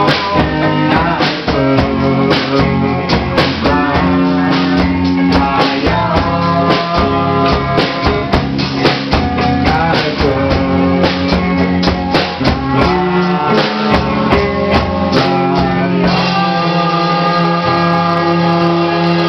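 Rock song with electric guitar, drum kit and singing. The drums stop about sixteen seconds in, leaving held guitar chords.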